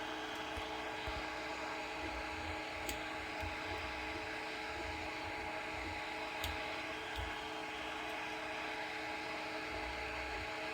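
E3D Hemera extruder on a 3D printer, extruding over a steady fan and stepper-motor whir, with irregular sharp pops from the extruder: two louder ones about three and six and a half seconds in, and several fainter ones between. This is the fault being shown, bursting pops while extruding.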